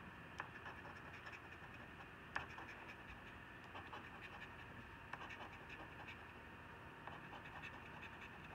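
Faint scraping of a coin rubbing the latex coating off a lottery scratch-off ticket, with scattered small ticks, the sharpest about two and a half seconds in.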